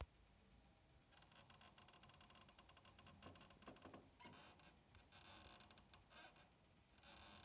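Faint creaking: a rapid crackle of fine ticks in several separate runs, starting about a second in.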